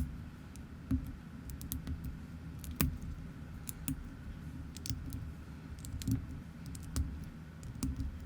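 Plastic building bricks clicking and snapping together by hand, in irregular sharp clicks about once or twice a second over a low steady hum.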